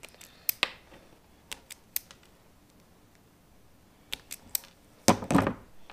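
Hand wire strippers clicking as they bite and strip the insulation off the ends of thin fog-light plug wires: scattered sharp clicks in small groups, then a louder, longer scrape about five seconds in.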